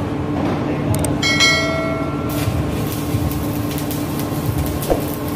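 Stick (shielded metal) arc welding: the electrode's arc crackles and sizzles steadily over a constant hum. About a second in, a short bell-like ding chimes for about a second, the notification-bell sound effect of a subscribe animation.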